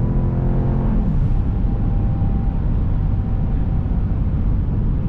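Dodge Durango R/T's 5.7-litre HEMI V8 pulling strongly, its note falling in pitch about a second in as the revs drop. It then settles into a steady drone of engine and road noise.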